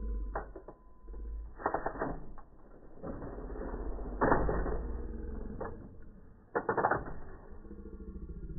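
Manual typewriter's keys, typebars and carriage mechanism clacking, slowed down so each strike comes out as a low, drawn-out thud. There are several strikes a second or more apart, with a low mechanical rumble between them.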